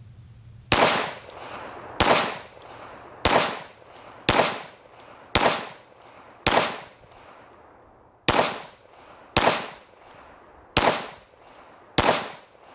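Ten pistol shots from a red-dot-sighted handgun, fired at a steady pace about a second apart, with a slightly longer pause between the sixth and seventh. Each report is sharp and trails off quickly.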